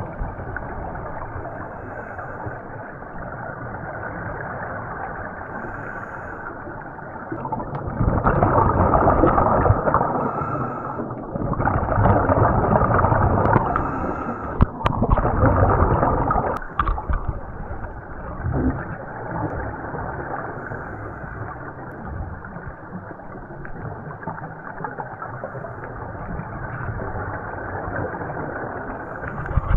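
Muffled underwater noise heard through a camera's waterproof housing, with three loud rushes of scuba regulator exhaust bubbles in the middle, a few seconds each.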